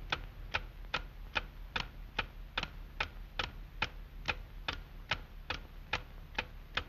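Cuckoo clock ticking steadily, about two and a half ticks a second.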